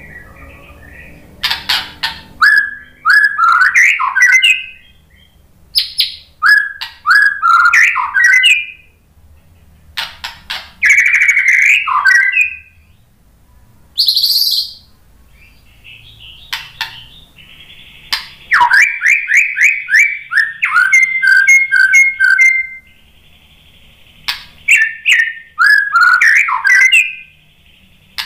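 White-rumped shama singing: loud phrases of whistled notes and fast trills, in bursts a second or a few seconds long with short pauses between. In the last third there is a longer run of rapidly repeated notes.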